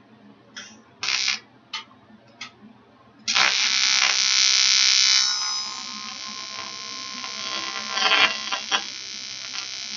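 TIG welding arc buzzing. Several short blips come first, then about three seconds in the arc strikes and holds as a steady, high-pitched buzz. It is loud at first and settles lower about two seconds later.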